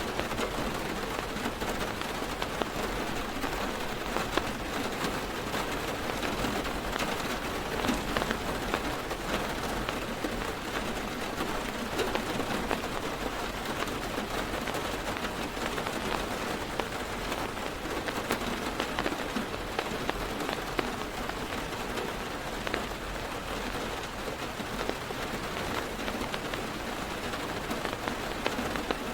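Heavy rain drumming on a car's roof and windows, heard from inside the car: a steady dense patter with many separate drops ticking sharply.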